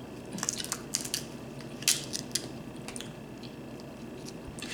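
Eating sounds from a seafood boil: a scatter of sharp clicks and crunches, mostly in the first half, as shellfish shells are cracked and bitten, over a steady low hum.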